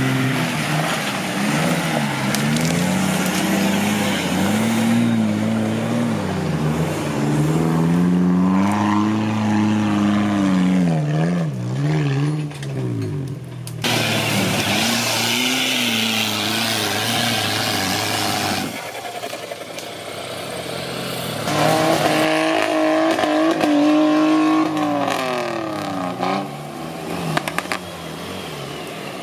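Off-road 4x4 engines revving up and down hard under load, in several clips that cut abruptly from one vehicle to the next.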